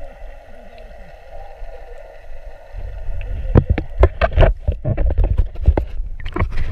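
Underwater camera sound: a steady muffled hum, then from about three seconds in a rapid run of sharp knocks, clunks and thumps as the camera is moved about against the swimmer's body in the water.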